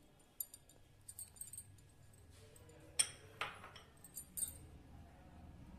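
Faint clinks and taps of crockery against a ceramic bowl as yogurt is tipped onto raw chicken, the sharpest tap about three seconds in.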